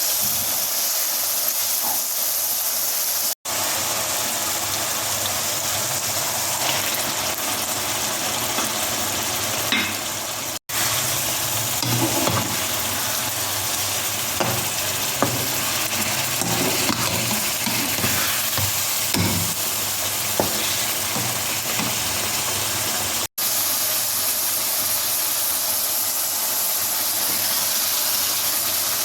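Boneless chicken sizzling steadily as it fries in a pan, with scattered light knocks of a utensil stirring it. The sound drops out for an instant three times.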